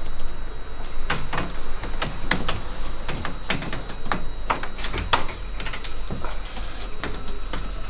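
Irregular sharp clicks and knocks, several a second, as the metal tube frame of a yacht's solar arch and its clip fittings are handled and pushed into place.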